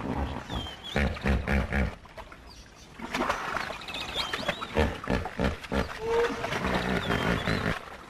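Hippopotamuses calling with deep, pulsed grunts, a quick run of about five a second in and more later, with short high bird chirps above.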